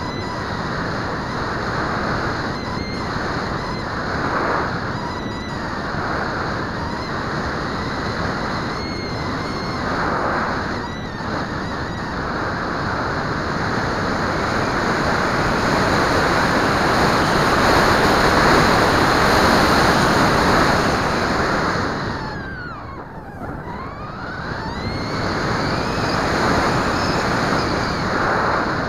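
Wind rushing over the onboard camera of a Bixler foam model plane in flight, with the steady whine of its electric pusher motor and propeller. About 23 seconds in, the whine drops sharply in pitch and comes back up as the motor slows and then speeds up again.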